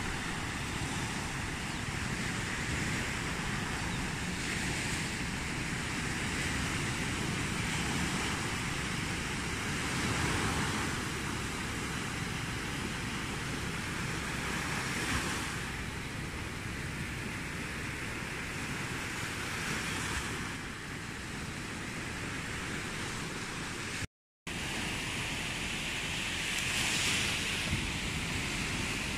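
Small sea waves breaking and washing up onto a sandy beach, a steady surf wash that swells about every five seconds. Wind rumbles on the microphone underneath, and the sound drops out for a moment about four-fifths of the way through.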